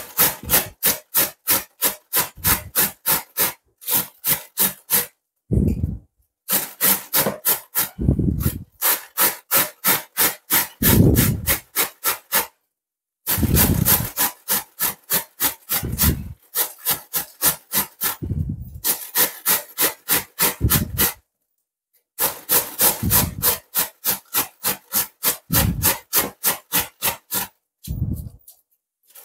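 A wedge of white cabbage rubbed up and down a stainless steel box grater: quick rasping strokes about three a second, in runs of several seconds with short pauses between them.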